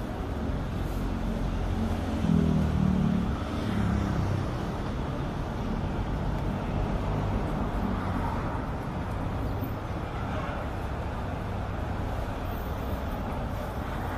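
Street traffic: cars driving past on a city road over a steady hum, with one vehicle's engine louder about two seconds in.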